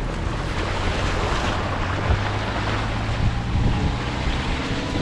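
Wind buffeting the microphone, over a steady low engine drone, while travelling.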